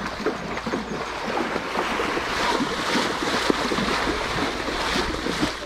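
River water splashing and sloshing continuously as ponies wade through it, with wind noise on the microphone.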